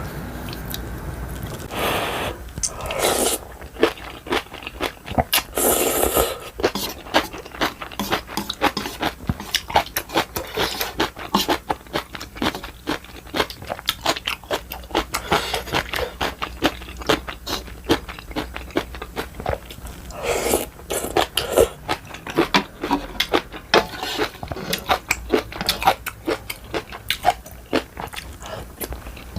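Close-miked eating sounds: chewing and crunching ramen and kimchi, with many small mouth clicks and a few longer, louder stretches.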